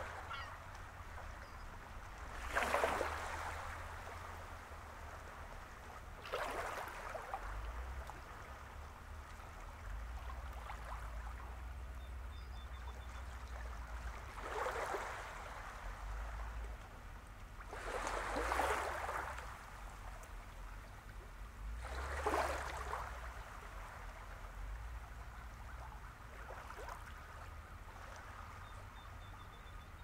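Small waves washing in at the water's edge, each wash a brief hiss of about a second, six times a few seconds apart, over a low steady rumble.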